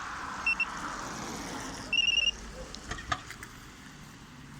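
StarLine A93 car alarm beeping: two short high beeps, then a quick run of about five beeps about two seconds in, over a steady hiss that stops right after. A couple of sharp clicks follow about a second later.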